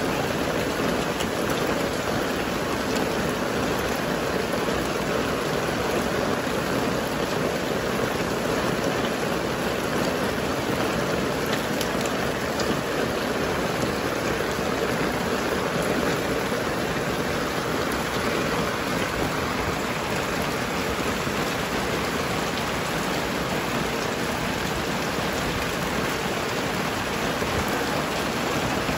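A steady, even rain-like hiss, unchanged throughout, with no separate knocks or clicks standing out.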